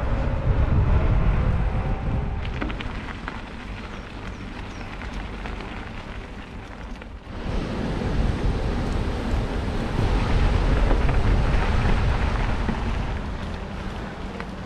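Wind buffeting a GoPro's microphone on a moving mountain bike, a loud uneven rush with scattered small clicks and rattles. The rush drops briefly about seven seconds in and then swells again.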